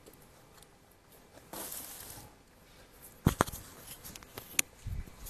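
A short rustle, then several sharp clicks and a soft low knock.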